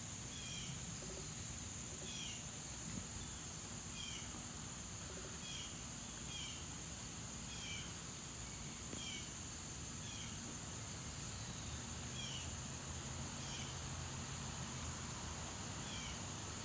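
Insects droning steadily at a high pitch, with a bird giving short, falling chirps about once a second and a low steady rumble underneath.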